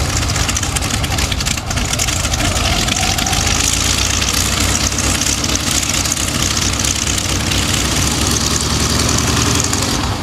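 F4U Corsair's Pratt & Whitney R-2800 eighteen-cylinder radial engine idling steadily on the ground, propeller turning.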